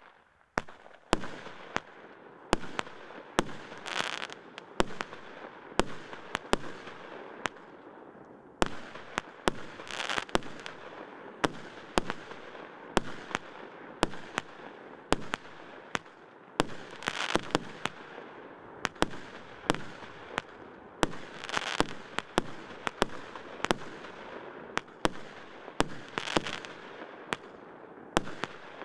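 'Snezhny Gorod' (SL162099) consumer firework battery firing a continuous volley: sharp bangs about one or two a second over a steady hissing crackle. The hiss swells louder every five seconds or so.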